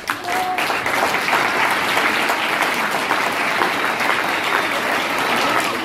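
Audience applauding, the clapping coming in just after the start and then keeping up steadily.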